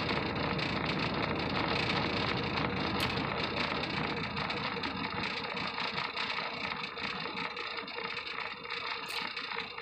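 Semi truck's diesel engine idling steadily, heard from inside the sleeper cab.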